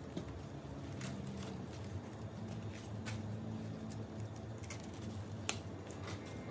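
Crisp rustling and snapping of Chinese mustard green leaves being pulled off the stalk by hand against a wooden cutting board, with a few scattered clicks and one sharp snap about five and a half seconds in.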